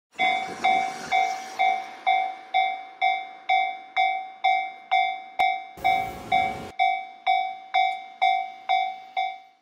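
Japanese railway level-crossing warning bell ringing steadily, about two strikes a second, each strike a clear ringing tone that fades before the next. A brief burst of noise lasting about a second cuts in about six seconds in.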